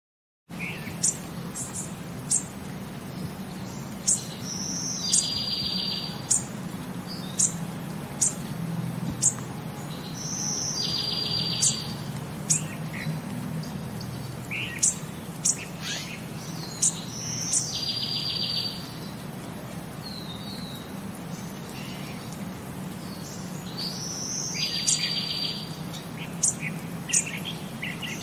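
Small birds chirping: sharp, high chirps throughout, with a short buzzy trill repeating about every six to seven seconds, over a faint steady low hum.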